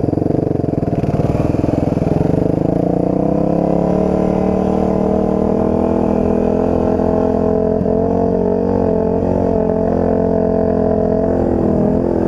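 Dirt bike engine running under way on a trail ride. Its pitch rises a little over the first few seconds, then holds fairly steady with small wavers.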